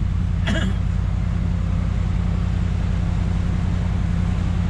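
Truck engine running steadily with a low, pulsing rumble, and one brief sharp sound about half a second in.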